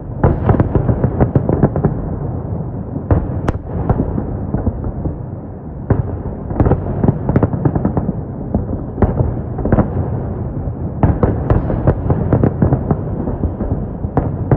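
Fireworks salute: volleys of sharp bangs from bursting shells, many in quick succession, over a continuous rumble and crackle, with brief lulls between the clusters of bursts.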